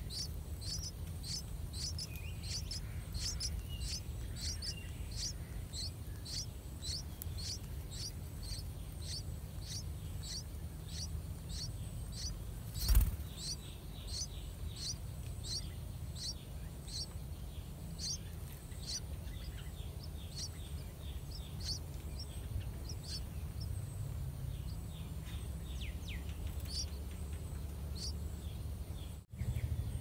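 Yellow-vented bulbul nestlings begging: a fast run of short, thin, high chirps, about two a second, that slows and thins out in the last third. A single loud thump comes a little before halfway, over a steady low rumble.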